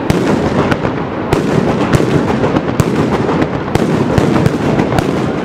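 Mascletà firecracker barrage: a dense, unbroken rattle of bangs with louder single salute-shell blasts standing out every second or so.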